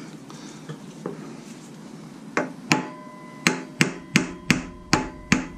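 Hammer tapping a harmonic balancer onto the crankshaft snout of a Jeep 4.0 inline-six. After a few light knocks, steady blows begin about two seconds in, roughly three a second, each with a short metallic ring.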